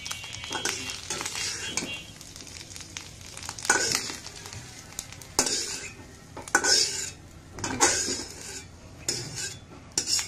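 Metal spatula scraping fried egg out of a hot, oiled kadai, with oil sizzling in the pan. After a quieter start, about six sharp scrapes follow one another from roughly a third of the way in.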